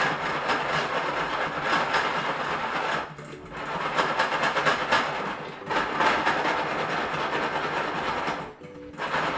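Popcorn kernels popping fast inside a covered stainless steel saucepan that is shaken back and forth on an electric coil burner, the pot and lid rattling and scraping. The shaking and noise drop off briefly about three seconds in and again near the end.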